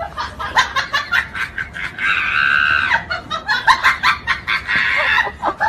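High-pitched cackling laughter: a rapid run of short shrill bursts, with a held squeal about two seconds in.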